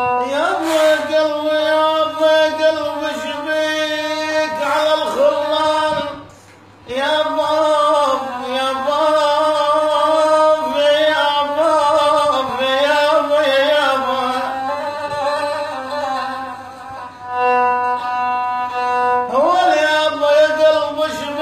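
A man singing Arabic ataba in long, bending vocal phrases, accompanied by a fiddle held upright on the knee and bowed rebab-style, which holds steady notes under the voice. Both break off briefly about six seconds in and then resume.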